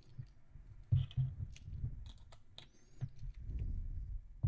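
Small mirrorless cameras handled and set down on a wooden table: a scatter of light knocks and clicks with soft rubbing and dull bumps, the sharpest knock about a second in.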